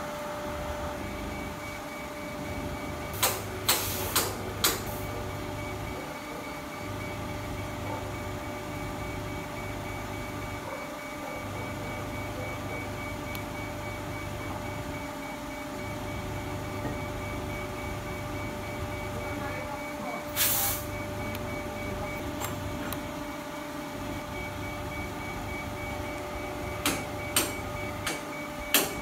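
CNC milling machine running: a steady hum with a fixed tone, a lower hum that switches on and off every few seconds as the axes move, and a few sharp clicks, three or four close together early on and a cluster near the end.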